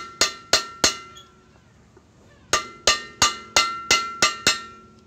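Hammer striking the steel rim of an exhaust-brake air chamber, peening the old crimp closed again around a new rubber diaphragm. Sharp ringing metal-on-metal blows about three a second: four at the start, a pause of about a second and a half, then a run of eight more.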